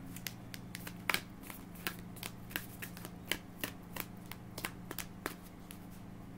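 A deck of tarot cards being shuffled by hand: a quick, irregular run of soft card slaps and clicks, a few a second.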